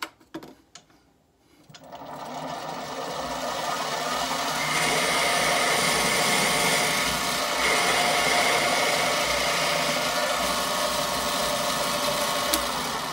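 Mini metal lathe switched on and running up to speed over a couple of seconds, then a steady whir with the hiss of the tool taking a turning cut along an ebonite tenon, reducing it toward 10 mm for an M10 thread. A single click near the end, and the sound stops just after.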